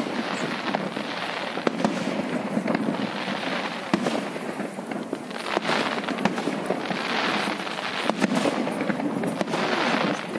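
Aerial firework shells bursting: a rapid, uneven string of sharp bangs over continuous crackling.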